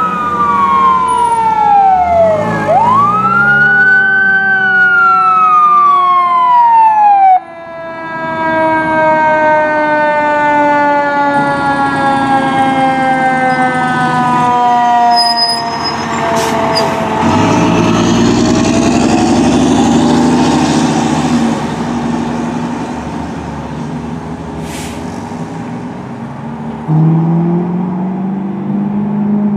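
Fire engine responding with its siren. A wailing siren sweeps up and down and cuts off about seven seconds in. After that a siren tone falls slowly over some ten seconds as it winds down, and then the truck's engine is heard as it passes and pulls away.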